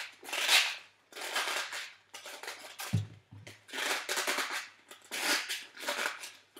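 Raw artichokes' tough leaves being pried open by hand, crackling and snapping in a series of short scratchy bursts. A dull thump about three seconds in, as of something set down on the counter.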